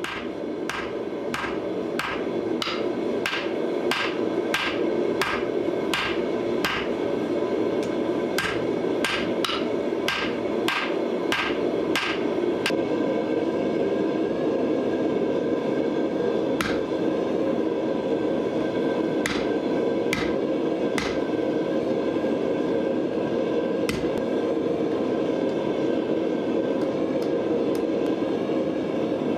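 Hand hammer forging a hot 1084 high-carbon steel blade on an anvil: quick blows about two a second for the first twelve seconds or so, then only occasional blows, with a ringing tone that carries between them. A steady rushing noise runs underneath.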